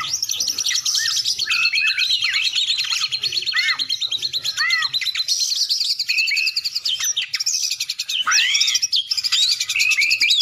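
Several birds calling at once: a fast, continuous high trill with many short, repeated arched chirps over it.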